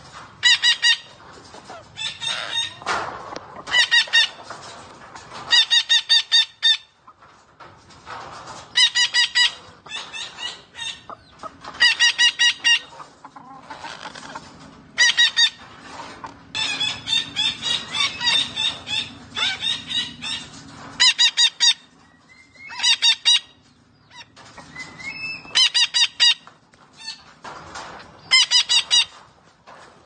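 Red-breasted parakeet calling in short runs of rapid, repeated notes, over and over every few seconds, with a longer stretch of chattering around the middle.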